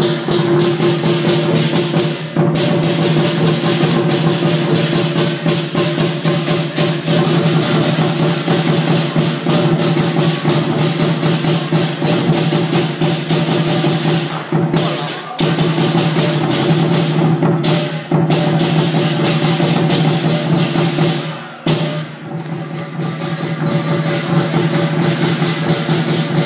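Lion dance percussion ensemble: a big Chinese drum beaten in fast, driving strokes with crashing cymbals and a ringing gong. The beat breaks off briefly a few times in the second half and picks up again.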